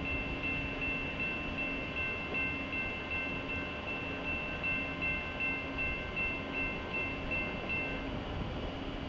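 Railroad grade-crossing warning bell ringing in quick, even rings over a steady low rumble; the high bell tone stops about eight seconds in as the crossing gates rise.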